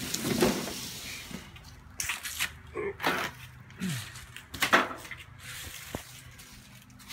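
Irregular rustling, scuffing and a few light knocks from someone moving among stored clutter, with the phone being handled close to the microphone.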